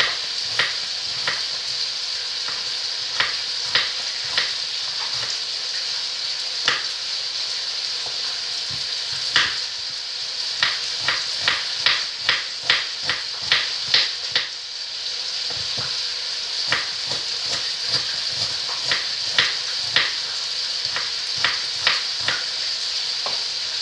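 Pork ribs frying in hot oil in a kazan, a steady sizzle, with a knife slicing onion on a wooden cutting board in sharp taps that stand out above it. The taps come irregularly, with a quick run of them about ten to fourteen seconds in.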